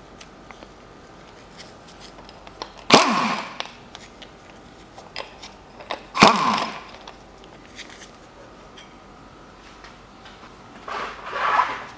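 Impact wrench firing in three short bursts, about three, six and eleven seconds in, undoing the bolts of the engine's front pulleys. The first two start sharply and fall in pitch as they die away; the third is softer and longer.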